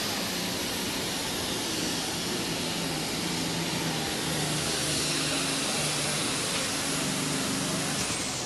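Diesel super stock pulling tractor, a turbocharged Case IH, running flat out under load as it drags a weight-transfer sled. It makes a loud, steady engine sound with a dense high-pitched hiss over it.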